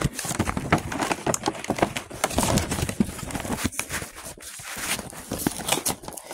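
A cardboard box being torn apart by hand: a continuous run of irregular ripping, crackling and crinkling noises.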